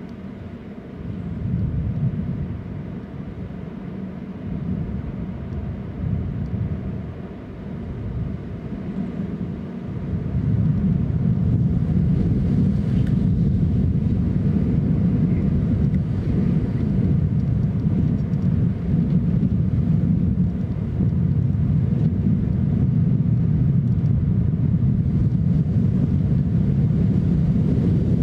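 Wind buffeting an outdoor microphone, a low rumbling noise that gusts unevenly for about the first ten seconds, then blows loud and steady.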